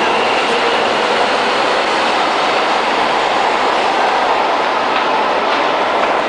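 Subway train pulling out of an underground station: a steady, loud rush of wheels and motors on the rails.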